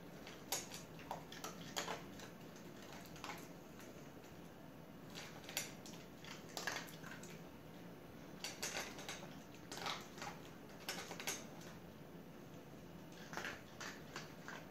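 Small dog eating dry kibble from a stainless steel bowl: irregular crunches and clicks of kibble being chewed and knocked against the metal bowl, in clusters with short pauses.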